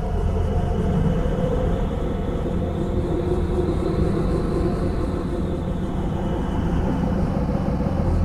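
Experimental drone music recorded on an ELFA 201 reel-to-reel tape machine: a steady low rumble with held tones above it, one of them swelling in the middle.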